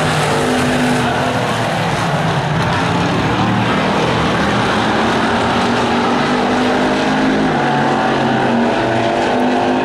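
Several hobby stock race cars running hard in a pack, their engines overlapping in a loud, steady drone of several pitches that shift as the cars pass, with some engines rising in pitch near the end.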